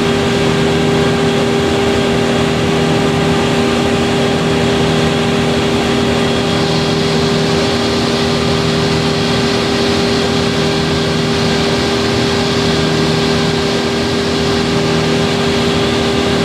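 Heavy engine running steadily at a constant speed, an unchanging drone with no revving.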